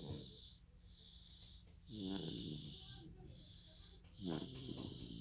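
Snoring: three pitched snores about two seconds apart, with a high hiss coming and going between them.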